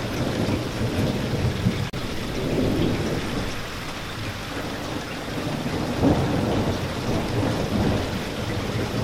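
Steady heavy rain with low rolling thunder underneath, swelling suddenly louder about six seconds in. A brief dropout about two seconds in.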